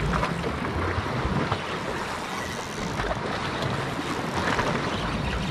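Sea surf washing against shore rocks, with wind buffeting the microphone in an uneven low rumble.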